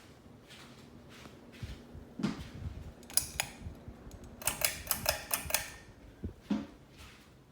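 Harbor Breeze Centerville ceiling fan's metal pull chain rattling, with its switch clicking as the speed is changed: scattered clicks and knocks, then a quick run of rapid metallic clicks about halfway through, over the faint steady hum of the fan motor.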